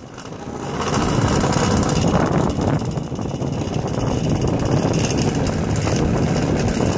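Steady rushing and rumbling of wind and motion on a phone microphone held against a jacket during a fast downhill ride. It builds over the first second as speed picks up, then holds.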